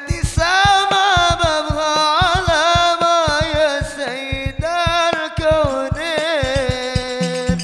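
Sholawat devotional song performed live: a solo voice sings long, ornamented phrases that slide and waver in pitch over fast, busy drum strikes.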